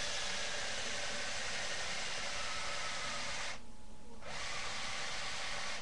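A radio-controlled toy car's motor running with a steady hissing whir, stopping for under a second about three and a half seconds in, then running again and cutting off.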